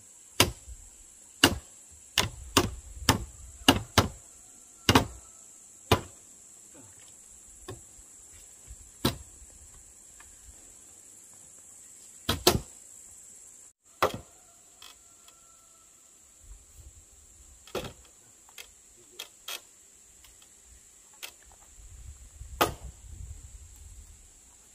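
A hammer striking a timber beam on a wooden house frame: sharp wooden knocks, about a dozen in quick, irregular succession in the first six seconds, then fewer and farther apart. A steady high-pitched insect buzz runs underneath.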